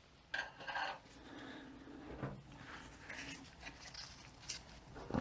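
Hands working on a 42RE transmission clutch drum: a few soft knocks in the first second, then scattered faint rustling and small clicks of metal parts being handled.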